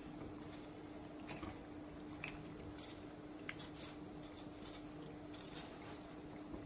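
Boiled penne sliding off a steel strainer and dropping into a pan of pumpkin sauce: faint soft wet squishes with a few light clicks, over a steady low hum.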